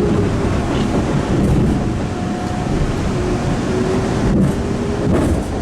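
CRRC-built MBTA Orange Line subway car running at speed, heard from inside the car: a loud, steady rumble of wheels on rail, with a faint whine that comes and goes.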